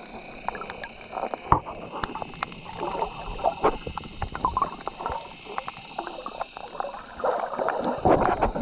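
Muffled water swishing and bubbling around a submerged camera, with scattered sharp clicks and a louder stretch of swishing near the end. A faint steady high whine runs underneath.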